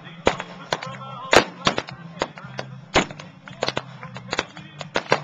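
Music playing under a rapid run of sharp cracks or bangs, about two to three a second and uneven, the loudest about one and a half seconds in.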